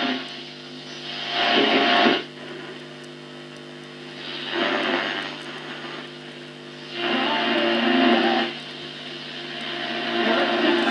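Telefunken Digitale 101 clock radio's speaker playing radio sound that swells up and falls away about every three seconds, over a steady low hum.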